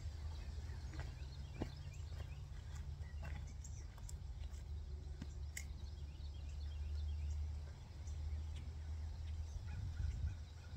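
Outdoor ambience: a steady low rumble with faint, repeated bird calls and a few light clicks.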